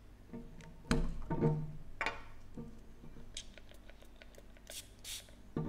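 Glass body-mist bottle and its cap knocking against a glass shelf about one and two seconds in, each knock ringing briefly, then a few short hisses of the bottle's pump sprayer misting onto a paper blotter.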